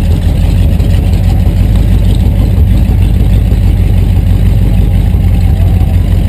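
A rat rod pickup's engine running steadily while the truck creeps along at low speed. Heard loud from inside the cab, with a fast, even low pulse.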